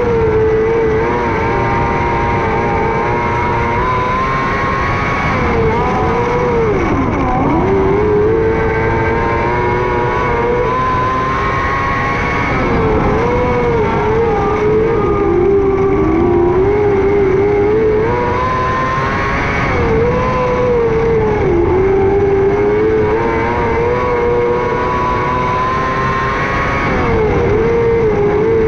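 600cc micro sprint car engine running at high revs around a dirt oval. Its pitch dips sharply every six to eight seconds as the driver lifts off for the corners, then climbs back up on the straights.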